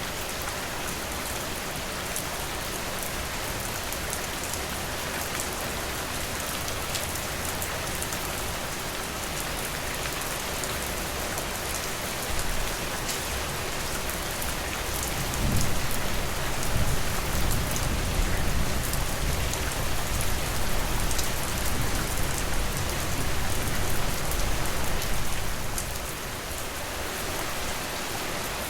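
Steady rain with fine drops ticking. About halfway through a long, low rumble of thunder comes in, lasts about ten seconds and dies away near the end.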